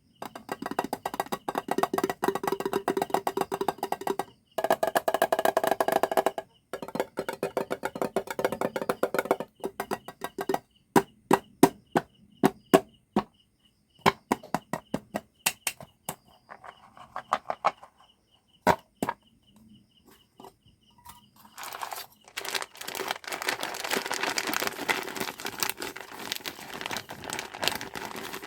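Close-up handling of candy packaging: dense crackling at first, then a run of separate sharp taps and clicks, then plastic crinkling near the end.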